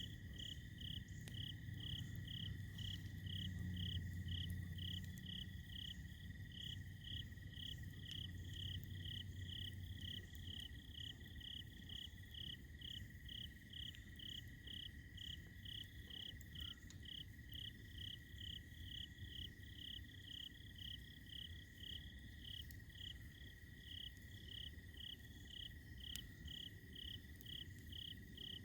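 Night-time crickets: one chirping in an even rhythm about twice a second, over another insect's steady, unbroken, lower trill. Under them a faint low rumble, stronger in the first ten seconds, with a few faint crackles from the campfire.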